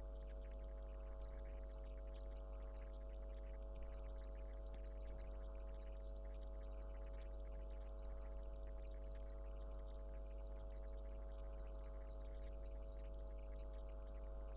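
Steady electrical hum, like mains hum, holding unchanged with nothing else happening.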